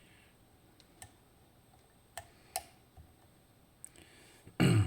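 Scattered sharp metallic clicks of lock-picking tools, a tension wrench and pick, being set into a Dierre New Power high-security lock, with a louder knock near the end.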